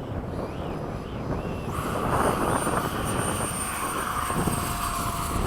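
Freewing 70mm F-35 model jet's electric ducted fan, driven by an inrunner brushless motor, running: about two seconds in its rushing sound gets louder and a thin high steady whine comes in. Wind buffets the microphone underneath.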